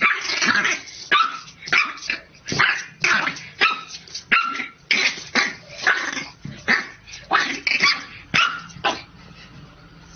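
A dog barking over and over, about two barks a second, stopping near the end.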